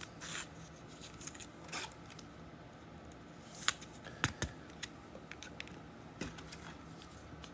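Trading cards and packs being handled. The sound is soft, scattered clicks and rustles, with a few sharper clicks a little past halfway.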